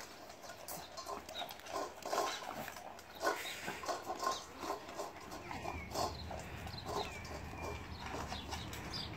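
Puppies eating from bowls: irregular chomping and crunching of food, with snuffling at the bowls.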